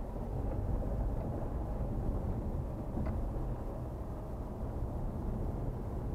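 Car driving along a lane, heard from inside the cabin: a steady low rumble of engine and tyres on the road.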